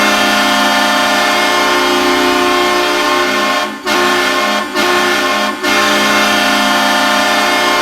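Calgary Flames arena goal horn blowing a long, loud blast of several tones at once, broken three times by brief gaps midway.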